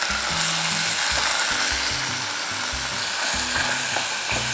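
Chunks of pork shoulder sizzling as they sear in hot sesame and grapeseed oil in a pot, stirred with a wooden spoon, with background music underneath.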